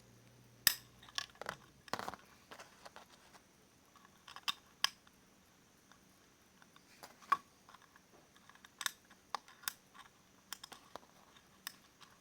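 Faint, irregular clicks and scrapes of small parts being handled, in uneven clusters with short pauses between them.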